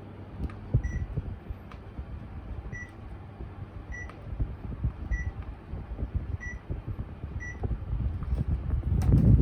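Panasonic split air conditioner's indoor unit beeping six times, short single-pitch beeps roughly a second apart, as it acknowledges remote-control commands, over a low hum with a few light knocks.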